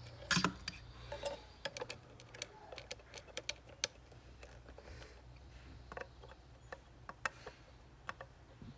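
Scattered small clicks and taps of soldering tools, tweezers and iron tip, against a USB-C port and circuit board while its first pin is tacked down with solder. A low steady hum runs underneath.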